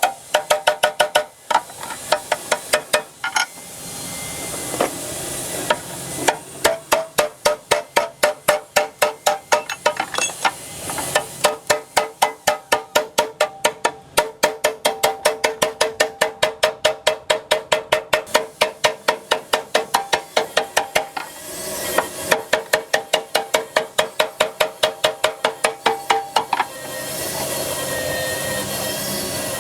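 Hammer blows on a steel excavator cabin panel, fast and steady at about four strikes a second, each one ringing the sheet metal, with short pauses between runs. Near the end the hammering stops and a steady hiss takes over.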